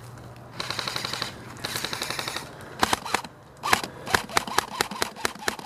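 Airsoft guns firing: two short full-auto bursts of rapid clicking, then a run of separate sharp shots, roughly three a second.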